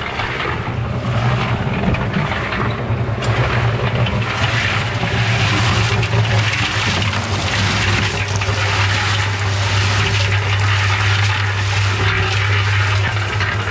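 Concrete mixer running, its motor giving a steady low hum while gravel and wet concrete tumble and rattle in the turning drum.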